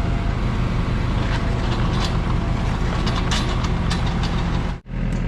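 Excavator's diesel engine running steadily under digging work, with short clinks and scrapes in the middle; the sound drops out for a moment near the end.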